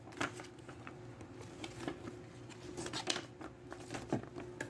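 Light irregular clicks and rustling from handling the unboxed plastic water-fountain parts and their paper packaging, a few taps a second apart, over a faint steady hum.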